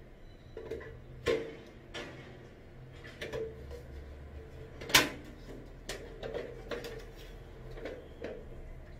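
Scattered clicks and knocks from a round ceiling lamp's plastic diffuser cover being handled against its metal base, with a sharp knock about five seconds in that is the loudest.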